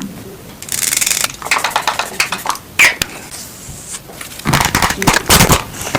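Close-miked crackling, rustling and tapping from handling face-mask and cream packaging, in quick irregular bursts, with a louder, fuller rustle about four and a half seconds in.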